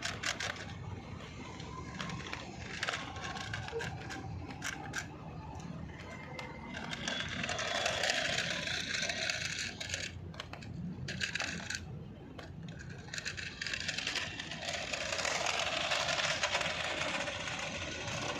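Toy remote-control car with a small electric motor: sharp plastic clicks and rattles, then two spells of the motor whirring as it drives, about seven seconds in and again near the end.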